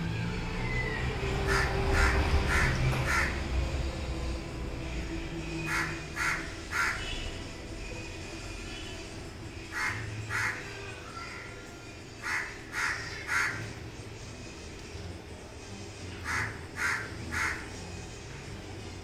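Crows cawing, in short series of two to four caws repeated every few seconds. A low rumble runs under the first few seconds.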